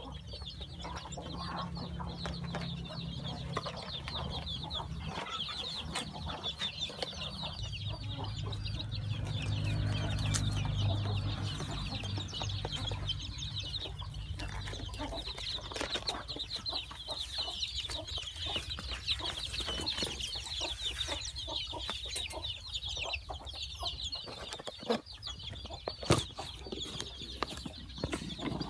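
A brood of young chicks peeping continuously, many high chirps overlapping, with a few sharp knocks near the end.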